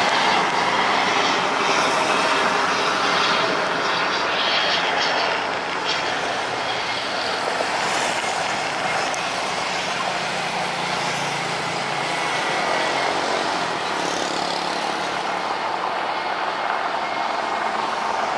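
Military transport helicopter hovering and moving low: a steady rotor and turbine noise, with road traffic passing early on.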